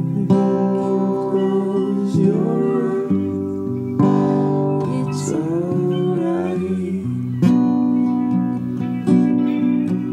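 Recorded song with acoustic guitar, chords and picked notes ringing on steadily, a gliding melody line over them.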